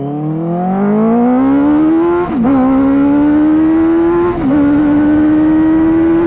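Benelli 600i's inline-four engine through dual SC Project exhausts, accelerating hard at full throttle. The pitch climbs steeply for about two seconds, then dips briefly at two upshifts, about two and four and a half seconds in, and climbs more slowly after each.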